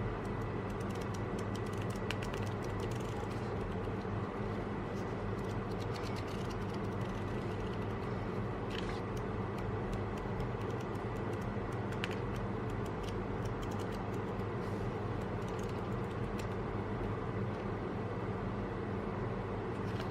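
Steady low room hum, with faint scattered clicks and rustles of paper being handled.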